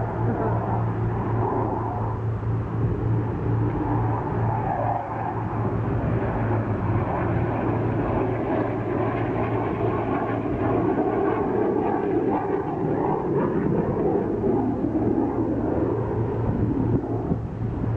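Aircraft engine noise from a Eurofighter Typhoon jet and a Spitfire flying together overhead: a steady, continuous drone.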